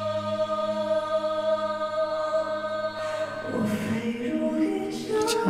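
Live concert music with a male singer: a long held high note over sustained accompaniment, then the sung melody climbs step by step from about three and a half seconds in and settles on a new held note near the end.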